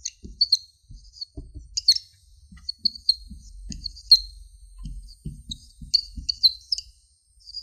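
Marker squeaking on a whiteboard as Chinese characters are written: many short high squeaks in quick clusters, stroke by stroke, with soft taps of the marker tip against the board.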